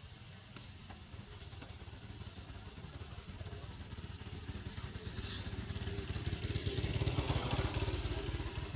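A motor vehicle's engine passing by, growing louder to a peak about seven seconds in, then fading.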